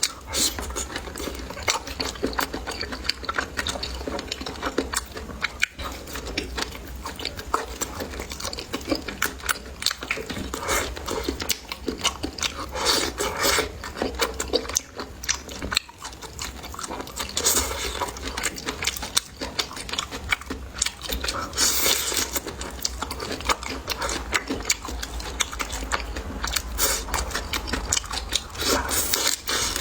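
A person chewing and biting food close to the microphone: a dense, irregular run of mouth clicks and smacks over a low steady hum.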